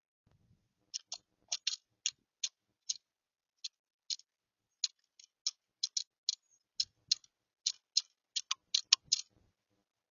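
About two dozen sharp, irregular taps and clicks from a bird inside a birdhouse, coming closer together near the end.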